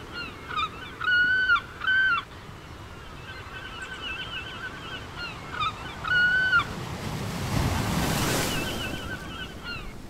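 Birds calling repeatedly: a few short, clear calls about half a second long, with quicker rippling chatter between them, over a steady rushing wash. The wash swells and fades about eight seconds in.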